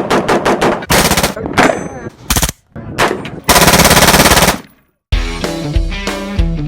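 Gunfire: a quick string of single shots, then rapid bursts of automatic fire, the longest about a second. It fades out and rock music with guitar starts about five seconds in.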